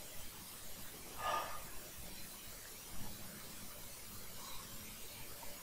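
Quiet room tone with a faint hiss and one soft, short rustle a little over a second in.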